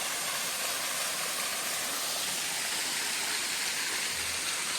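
Waterfall running into a pool: a steady rushing hiss of falling water.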